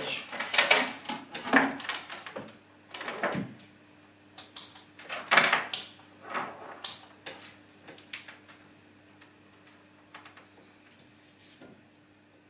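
Handling sounds at a workbench: wires and a small 18650 battery pack moved about and set down, and multimeter test leads picked up. There are rustles and several sharp clicks and knocks over the first eight seconds or so, then only a few faint taps, with a faint steady hum underneath.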